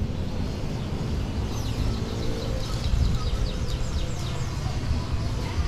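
Caged songbirds chirping and twittering: a rapid run of short, high chirps, thickest in the middle, over a steady low rumble.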